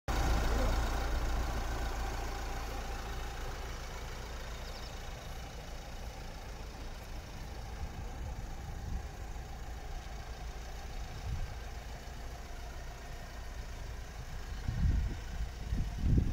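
Mercedes-Benz Vito 111 van's diesel engine idling steadily.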